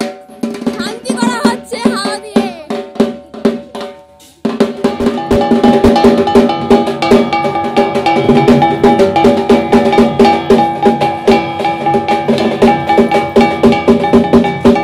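Rapid ritual beating of a bell-metal kasor gong together with drumming, the metal ringing on steadily under the strokes. Sparser and quieter at first, it turns loud and dense about four and a half seconds in.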